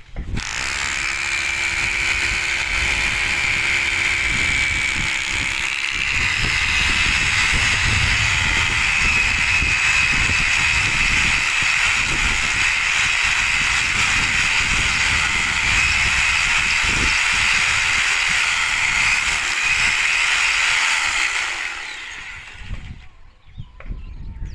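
Electric power drill running continuously for about 22 seconds, then stopping near the end.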